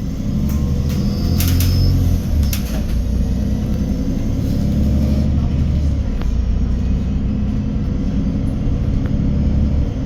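MAN Lion's City 12 EfficientHybrid CNG bus heard from inside while driving: low engine and drivetrain rumble with a steady hum. A few clicks and rattles come in the first few seconds.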